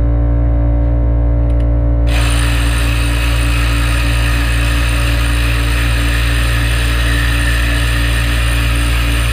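A loud, steady hiss of compressed air from an air blow gun starts suddenly about two seconds in, over background music with a steady bass.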